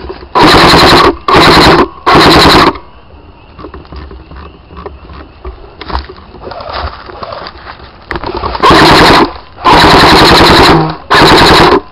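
Battery-powered airsoft gun firing full-auto in short bursts of rapid shots, loud and close. Three bursts come in quick succession at the start, then after a pause of about six seconds three more come near the end.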